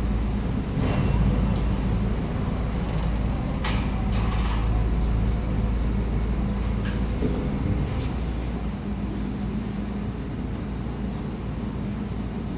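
Heavy diesel engine of an excavator running steadily with a low rumble, with a few brief sharper sounds about four seconds in and again around seven to eight seconds.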